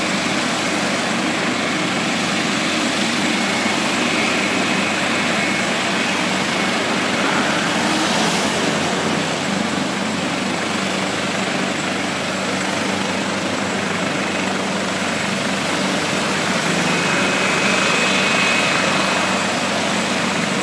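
Maryland State Police medevac helicopter running: a steady rush of rotor and engine noise with a faint high whine.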